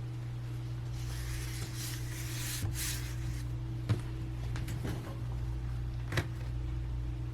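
A brief rustle, then a few light, sharp clicks and taps spread over several seconds, over a steady electrical hum, as laptop parts are handled.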